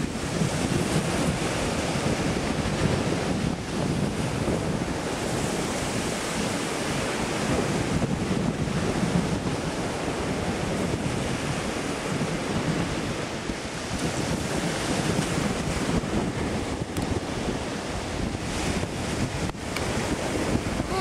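Small waves washing onto the beach, a steady surf rush, with wind buffeting the camera microphone.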